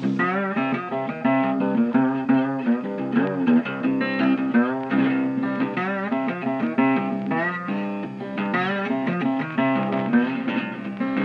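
Background music: guitar playing, with many bent notes.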